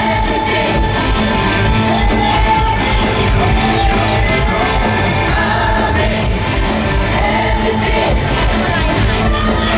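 Live pop song over a concert sound system: a band playing while several singers sing into microphones, with shouts from the audience.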